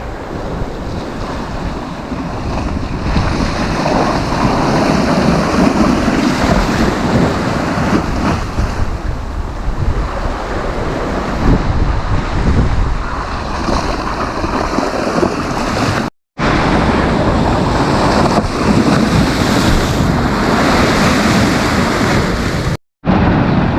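Sea waves breaking and washing up the beach in a continuous, swelling rush, with wind buffeting the microphone. The sound cuts out abruptly for a fraction of a second twice, about 16 and 23 seconds in.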